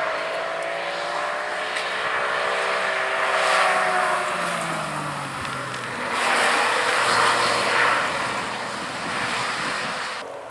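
Alfa Romeo hatchback's engine running hard on a race circuit as the car drives by. The engine note falls in pitch a few seconds in, then a louder rush of engine and tyre noise comes about six seconds in as the car passes close. The sound cuts off abruptly just before the end.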